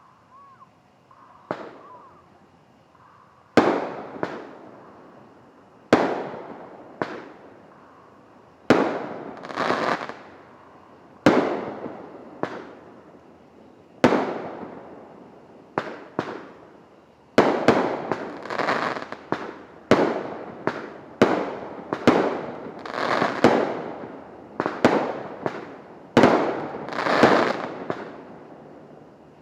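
Liberty Bell brand consumer fireworks going off: a string of sharp bangs, starting a few seconds in and coming about every one to two seconds, coming faster in the second half. Some bangs have a longer fading tail.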